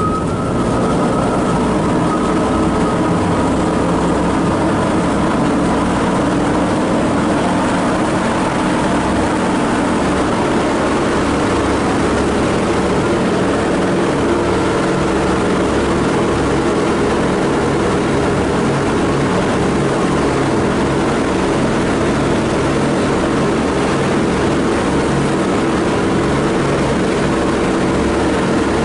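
The four Wright R-1820 Cyclone radial engines of a Boeing B-17G Flying Fortress droning steadily, heard from inside the fuselage, with a fast low throb from the propellers.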